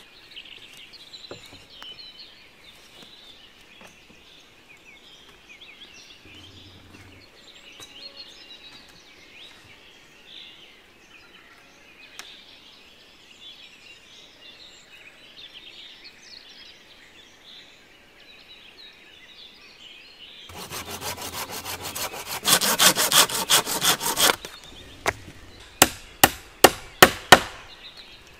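Faint birdsong in woodland, then a few seconds of fast back-and-forth hand sawing through wood, then about six sharp hatchet blows on a wooden pole near the end.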